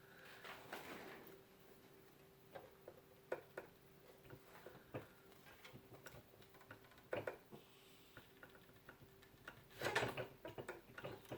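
Scattered light clicks and knocks of computer hardware being handled and fitted, with a louder cluster of clatter about ten seconds in, over a faint steady hum.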